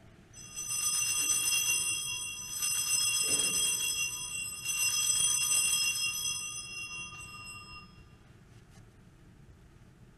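Altar bells rung three times at the elevation of the chalice during the consecration: a cluster of high chimes shaken about every two seconds, ringing on and fading out about eight seconds in.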